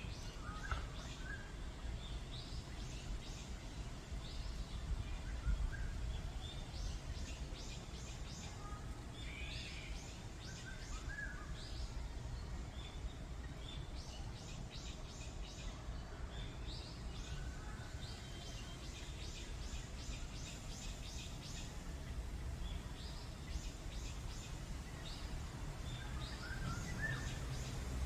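Several forest songbirds calling, with repeated quick trills of short high notes and scattered lower chirps, over a steady low background rumble.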